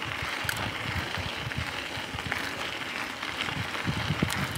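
Mountain bike rolling along a dirt trail: steady tyre noise over leaves and ground, with low rumbling and scattered small clicks and rattles from the bike.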